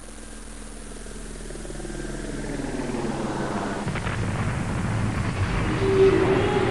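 Intro sound effect for a loading animation: a deep, noisy swell that grows steadily louder, with a faint tick about four seconds in.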